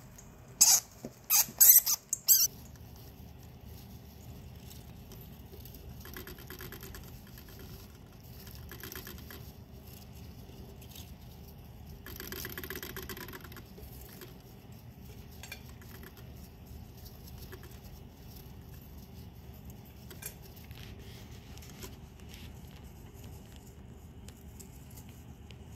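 A hamster licking and nibbling at the metal spout of a water bottle: fast, faint clicking of tongue and teeth on the sipper tube, coming in spells. A few loud, sharp clatters come in the first couple of seconds.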